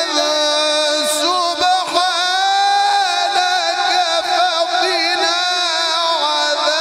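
A male qari reciting the Quran in the melodic tajweed style, holding one long, ornamented note after another that bends slowly up and down.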